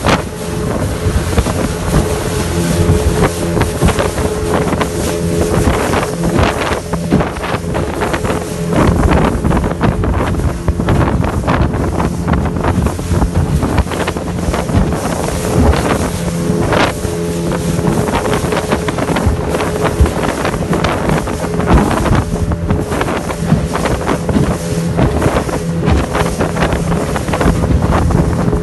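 A small motorboat's engine running steadily at speed, with wind buffeting the microphone and water splashing and slapping against the hull.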